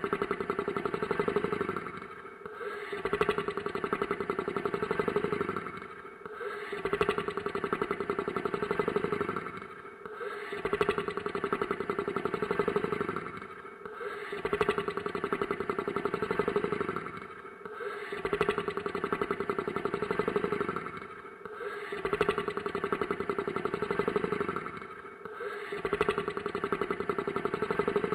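Monster snoring sound effect: a rattling snore that repeats in even breaths, one roughly every four seconds, each long and loud with a short dip between breaths.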